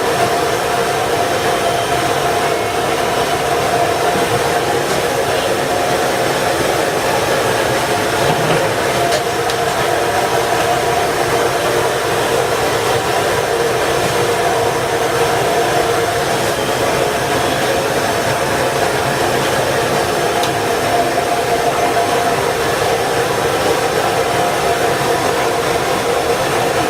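A steady rushing, blower-like noise with a constant hum, unchanging throughout.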